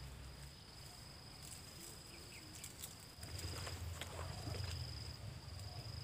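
An insect trilling on one steady high note, with a low rumble that grows louder about three seconds in and a few faint clicks.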